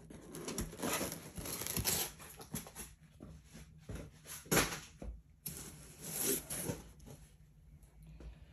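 Paper certificates being handled and swapped, rustling and sliding in short irregular bursts with a few light clicks.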